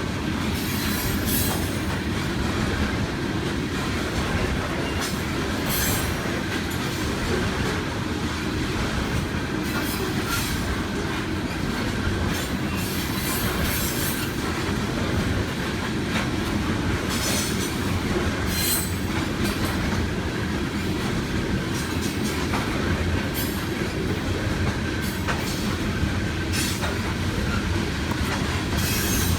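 Freight train rolling past, steel wheels running steadily on the rails with clicks over the joints and many short wheel squeals.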